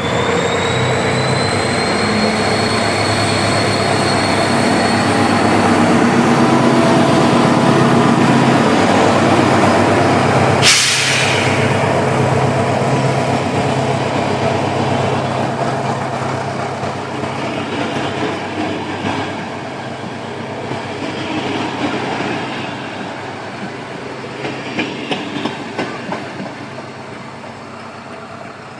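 SU42 diesel locomotive pulling away with a passenger train: the engine drones under load with a whine that rises early on, and a short sharp hiss of air comes about ten seconds in. The engine then fades, and wheels click over rail joints near the end as the carriages roll past.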